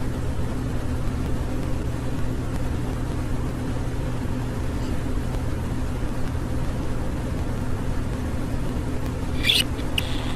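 Steady low hum in the background of a home recording of a pet budgerigar. A short high chirp from the budgie comes near the end.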